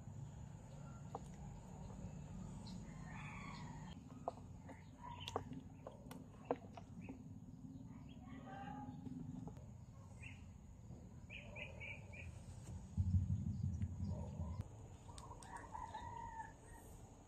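Fowl calling in the background, with scattered sharp clicks. A louder low rumble lasts about a second and a half, a little past the middle.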